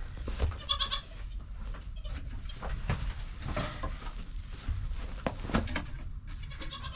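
Young bottle-fed goat kids bleating in high, short calls, a few times, amid rustling and light knocks of movement in the barn.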